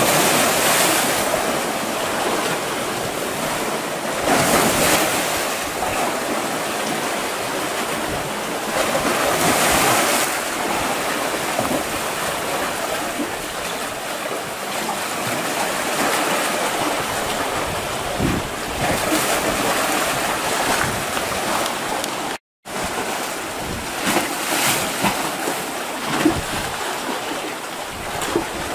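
Sea waves washing in and splashing against shoreline rocks, the surf swelling every few seconds. The sound drops out for a moment about two-thirds of the way through.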